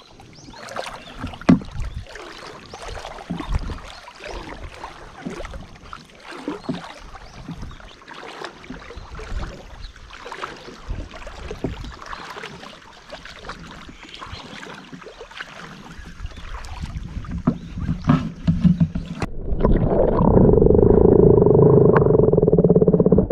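Shallow river water splashing and sloshing against a camera held at the surface, with scattered small knocks. About 19 seconds in, the camera goes underwater and the sound turns abruptly into a loud, muffled rumble with a steady low hum.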